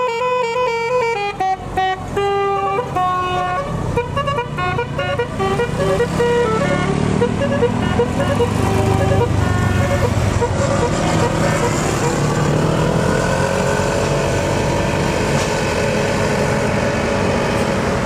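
A telolet basuri melodic horn playing a quick tune of stepped notes that fades out over the first several seconds, then the steady noise of road traffic and engines.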